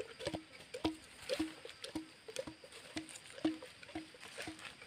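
A wooden stick pounding food in a bamboo tube to grind it for a curry. The knocks come steadily, about two a second, each with a brief low ring.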